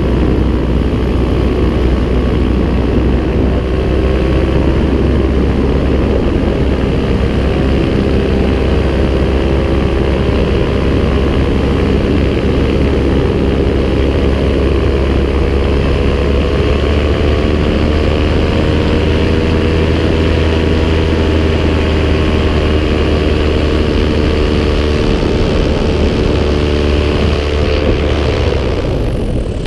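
Paramotor engine and propeller running steadily at flying throttle, with small pitch wavers; in the last second or two the pitch falls as the throttle is eased back.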